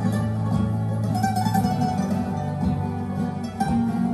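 Vinyl record playing on a Rega Planar 2 turntable: flamenco-style music with plucked acoustic guitars, played continuously.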